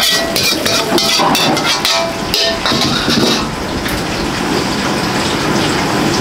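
Busy restaurant kitchen: rapid metal clattering and knocking over a loud, steady hiss. The clatter dies down after about three and a half seconds and the hiss goes on.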